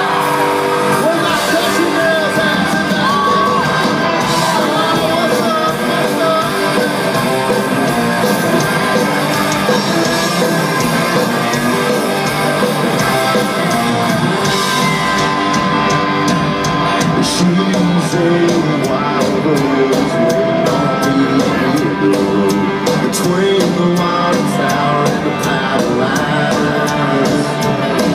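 Live country band playing: electric guitars, drums and keyboards, with a man singing and shouting over it. Steady drum hits come through more plainly from about halfway.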